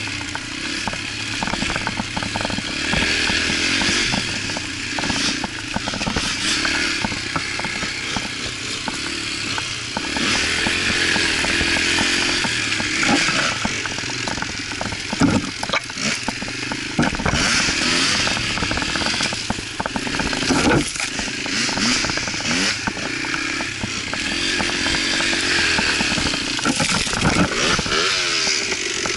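Yamaha TT-R125 dirt bike's single-cylinder four-stroke engine running under way, its pitch rising and falling as the throttle opens and closes. Frequent short knocks and rattles come from the bike jolting over the rough trail.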